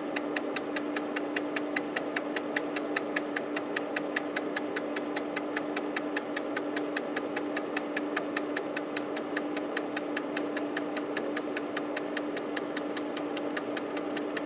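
Panasonic JU-257A135P 3.5-inch floppy drive, top cover off, its stepper motor clicking the head along at an even pace of about six clicks a second under a steady hum, as in a seek test run by diagnostic software.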